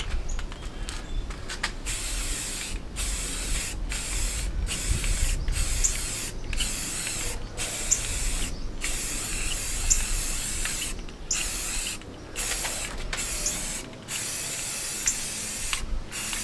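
Aerosol spray paint can spraying in many short bursts, a hiss broken by brief pauses.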